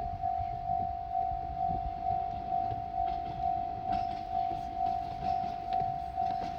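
Japanese railway level-crossing warning bell ringing: a single electronic tone repeating evenly about twice a second.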